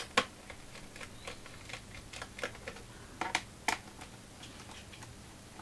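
Precision screwdriver undoing the screws of a laptop's plastic bottom cover: irregular small clicks and taps of the bit turning in the screw heads, with a sharper click just after the start and two more a little past three seconds in.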